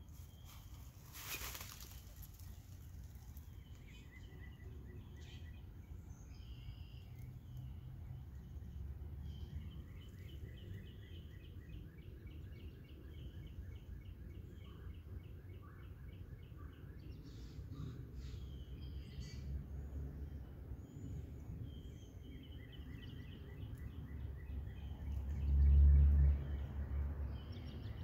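Outdoor ambience: small birds chirping and trilling again and again, over a steady low rumble of wind on the microphone that swells louder for about a second near the end. A short noise comes about a second and a half in.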